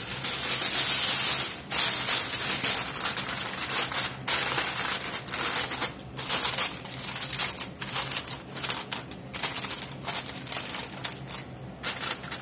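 Aluminium foil rustling and crinkling as a sheet is laid over a glass casserole dish and crimped down around its rim, loudest in the first second or two, then a run of irregular crackles.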